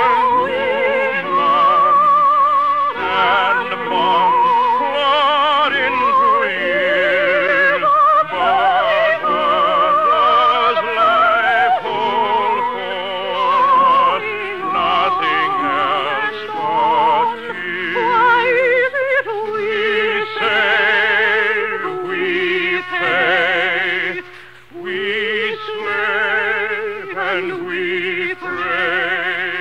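Orchestral music with operatic-style singing, the sustained notes wavering with strong vibrato. There is a brief lull near the end.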